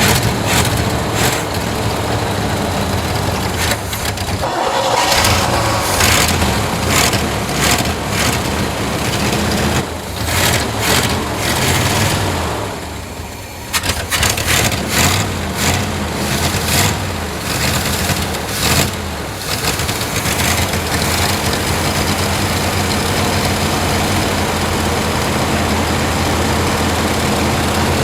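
1955 Willys Jeep's engine running just after starting, surging unevenly with a brief dip about halfway through, then settling into a steady idle.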